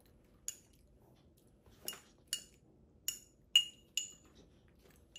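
A metal spoon clinking against a small glass food container while scooping rice porridge. There are about six or seven light, ringing clinks at uneven intervals, the loudest about three and a half seconds in.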